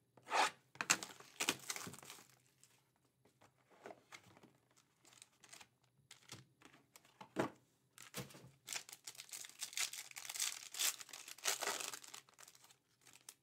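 Foil trading-card pack wrapper crinkling and tearing as it is opened by hand, the densest crinkling in the last few seconds. A few scrapes and clicks come in the first two seconds, and a single sharp knock about seven seconds in.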